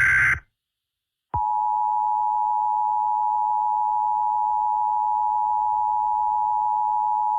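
The tail of an Emergency Alert System SAME header data burst, then a second of silence, then the EAS attention signal: a steady two-tone alarm of 853 and 960 Hz that starts a little over a second in and holds on without change.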